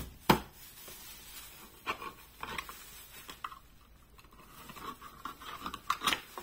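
Knife blade cutting open the lid of a tin can: a sharp metallic click just after the start, then irregular scraping, crunching strokes of the blade through the tin, coming thickest in the last couple of seconds.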